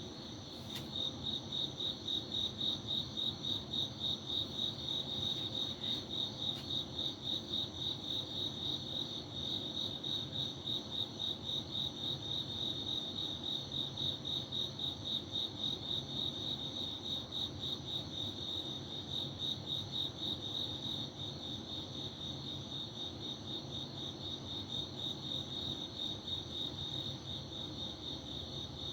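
Crickets chirping steadily, a high trill pulsing about two or three times a second.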